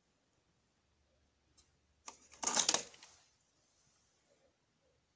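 A chewed-up cassette being pulled out of the open door of a Magnavox boombox's cassette deck: a click, then a short plastic rattle and scrape lasting under a second.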